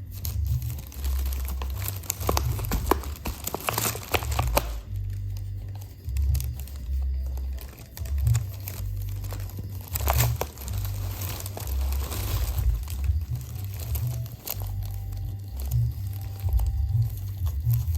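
Plastic bag crinkling and rustling in irregular crackles as a cat moves about inside it.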